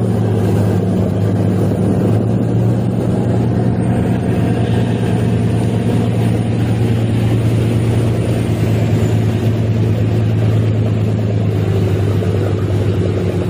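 Boat engine running steadily under way, with water rushing and splashing against the hull as it cuts through rough waves.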